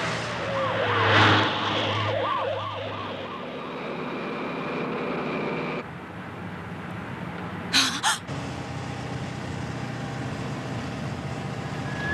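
Animated sound effects: a delivery truck's engine running with a steady hum while a police siren wails in quick, repeating rises and falls over the first three seconds. A rush of noise swells and fades about a second in, and two short hissing bursts come about eight seconds in.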